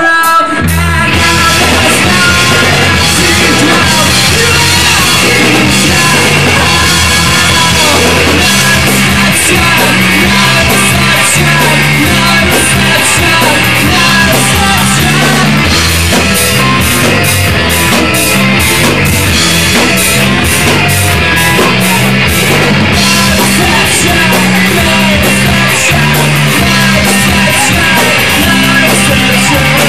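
Live rock band playing loud: electric guitar, a stepping bass line and a drum kit with cymbals, after a brief drop-out right at the start.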